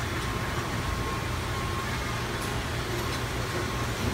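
Steady background drone of running machinery and ventilation on a factory floor: a constant low hum under an even hiss, with a faint steady high tone.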